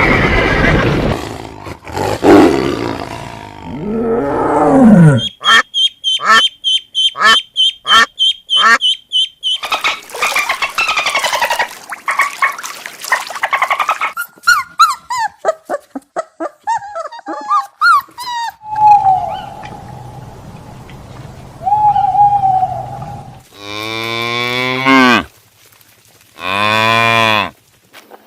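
A string of different animal calls cut one after another: clicking and chirping calls in the middle, then cattle mooing twice near the end.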